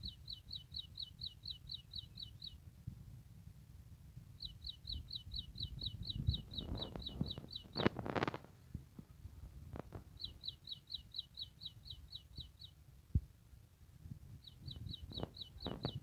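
A small songbird singing: four series of about a dozen quick, down-slurred notes each, every series lasting two to three seconds with pauses of a few seconds between. Under it a low rumble runs on, with a brief burst of noise about eight seconds in.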